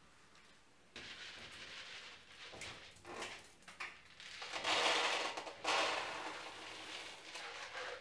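Dry dog kibble poured from a container into a plastic bowl: a rattling rush of pellets that starts about a second in and is loudest about five seconds in.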